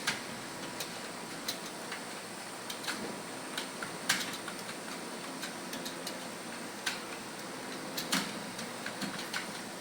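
Computer keyboard keys being typed on in an uneven stream of sharp clicks during a timed typing test, with a steady hiss of room noise underneath.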